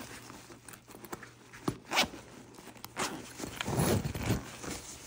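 Hands rummaging in a fabric backpack: cloth rustling and a zipper, with a few sharp knocks, the loudest about two seconds in, and a longer rustle near the end.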